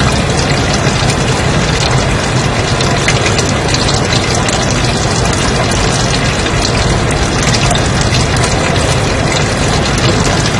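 Steady white noise: an even, unbroken hiss across the whole range of pitches.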